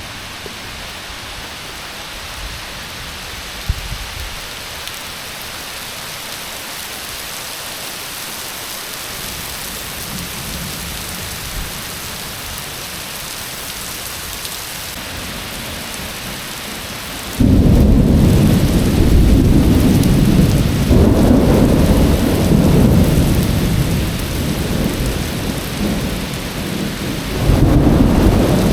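Heavy rain falling steadily. About two-thirds of the way through, a loud thunderclap breaks suddenly and rumbles for several seconds before easing. A second rumble of thunder comes near the end.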